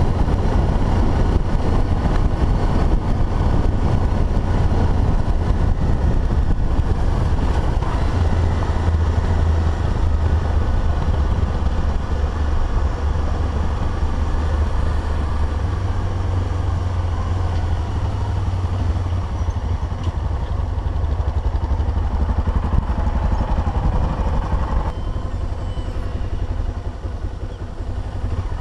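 Dual-sport motorcycle engine running while riding a dirt road, heard through a bike-mounted camera with heavy low wind rumble on the microphone. The sound eases off and gets quieter near the end as the bike slows.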